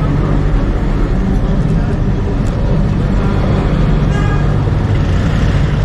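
Tram running along its rails: a steady low rumble of motor and wheels, with a brief higher-pitched tone about four seconds in.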